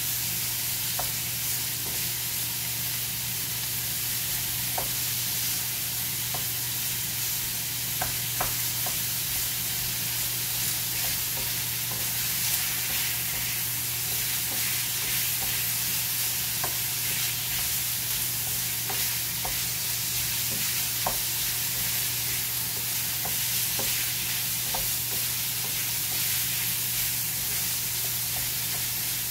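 Sliced meat sizzling in a frying pan while a wooden spatula stirs and turns it, with scattered light clicks and scrapes of the spatula against the pan. A steady low hum runs underneath.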